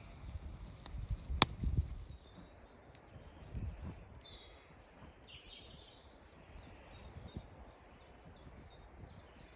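Wind rumbling and gusting on the microphone, with a sharp click about a second and a half in. From about three seconds on, a small bird sings a run of short, high chirps, about two a second.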